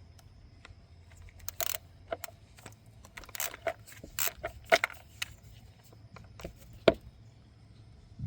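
Metal hand tools clinking and scraping irregularly on the engine while a VVT solenoid retaining bolt is loosened, with a sharp metallic knock near the end.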